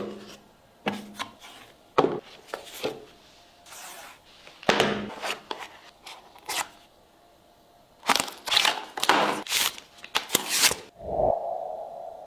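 Unboxing handling sounds: a series of taps, scrapes and rustles of the phone box, its packaging and its contents being handled, with a busier cluster of strokes about two-thirds of the way in and a brief hum near the end.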